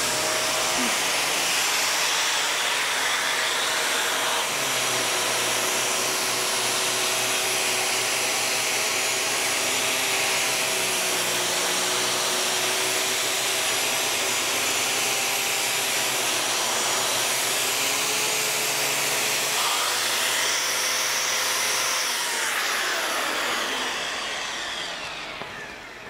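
Dyson Cinetic DC78 canister vacuum running with its tangle-free turbine tool, the motor and turbine brush heads making a steady whining rush as the tool sucks up long hair from a tile floor. The sound fades away near the end.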